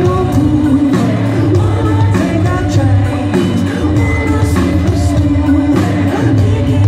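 Live band playing an indie-pop song, heard from among the audience: a sung lead vocal over a steady drum beat, bass and keyboards.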